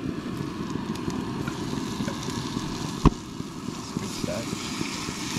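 Wind buffeting the microphone over the hiss of a frying pan of butter and squid cooking on a gas camp stove, with one sharp clack about three seconds in.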